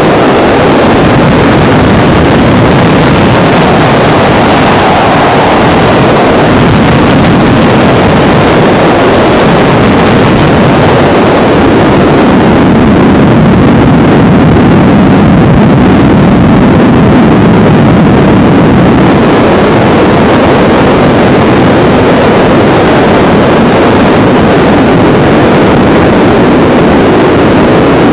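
Helicopter in flight: loud, steady engine and rotor noise, turning duller and lower for several seconds midway.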